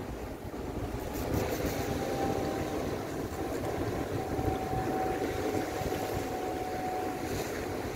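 Wind and sea wash rumbling on the microphone, steady throughout, with a faint steady hum running through it.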